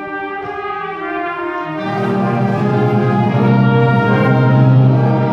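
High school concert band playing slow, held chords with brass to the fore. About two seconds in the low brass comes in and the sound swells louder.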